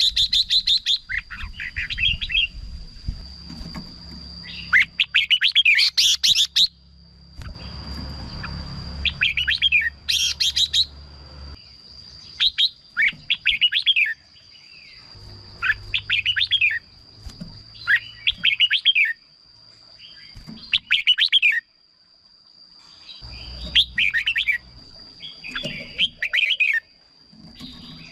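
Red-whiskered bulbul singing: short chirpy phrases that sweep up and down in pitch, one every second or two, over a faint steady high whine.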